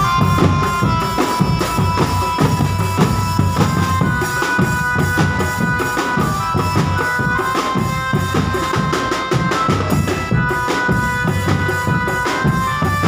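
Drumband music: drums and bass drum beating a dense, steady rhythm under a melody of long held notes.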